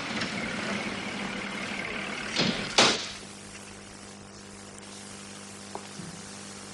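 Two sharp bangs at a wooden double door, about half a second apart, two and a half seconds in. Before them a steady hiss; after them a quieter room tone with a low hum and a faint click or two.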